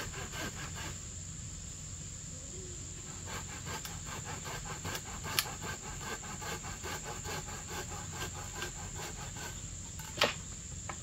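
Crickets or other insects trilling steadily at a high pitch, with a fast, even pulsing chirp through the middle. Two sharp knocks stand out, about five and ten seconds in.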